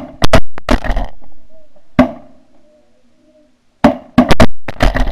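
Shotgun blasts from several hunters: a rapid volley near the start, a single shot about two seconds in, and another rapid volley near the end. Snow geese call faintly between the shots.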